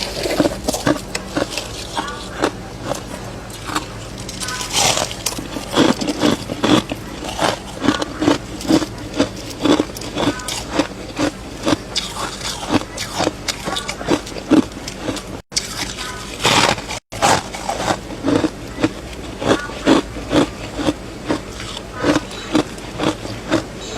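Close-up chewing and crunching of powdery freezer frost, in quick repeated bites and chews about two a second.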